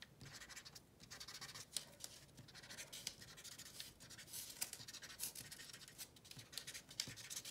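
Felt-tip marker scratching faintly across paper in a run of short, quick zigzag strokes, drawing small purple water-lily shapes.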